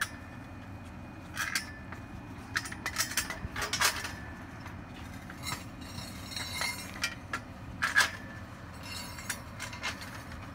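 Hard objects clinking and knocking together in irregular strikes, some ringing briefly, the loudest about eight seconds in.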